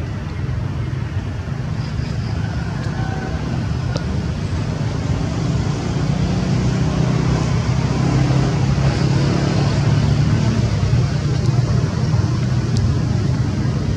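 Steady low rumble of road traffic, slowly growing louder through the middle and later part.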